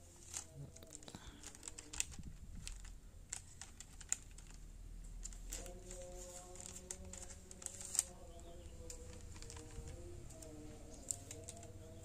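Thin clear plastic bag crinkling and ticking as a freshly sharpened machete edge slices through it in a sharpness test, a scatter of small, sharp clicks and crackles.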